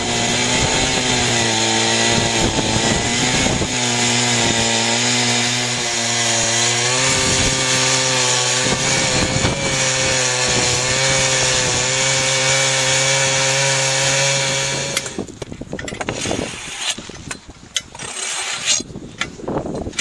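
Chainsaw mounted in an Alaskan chainsaw mill, running at steady full throttle while ripping lengthwise through a log. About fifteen seconds in the engine note stops, and quieter scraping and knocking follow.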